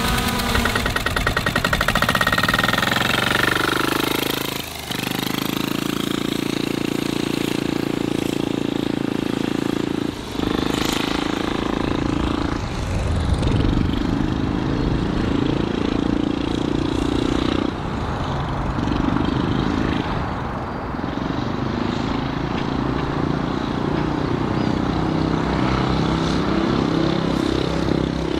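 Turbocharged 10-horsepower Kohler diesel engine driving a go-kart through a CVT torque converter, running hard with its pitch rising and falling as the kart speeds up and slows. The sound breaks off sharply twice, about 5 and 10 seconds in.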